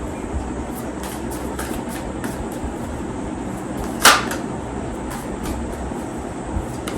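Tarot cards being handled and drawn from the deck, with faint scattered clicks and one brief, loud rustle of cards about four seconds in, over a steady background hum.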